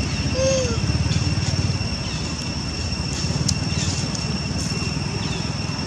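A baby macaque gives one short, arched cry about half a second in, over a steady low rumble and a constant thin high whine.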